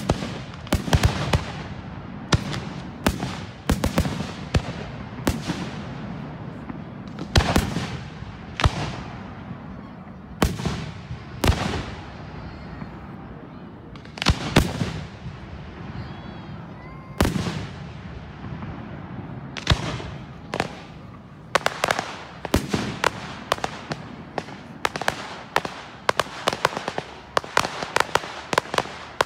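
Fireworks display: aerial shells bursting one after another, each sharp bang trailing off. About two-thirds of the way in the bangs come much faster, in a quick string of reports.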